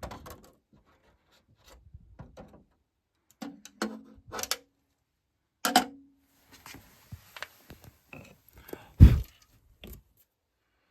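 Scattered clicks, knocks and light metallic rattles from hands working over the wiring and breakers of an opened electrical breaker panel, with one louder thump about nine seconds in.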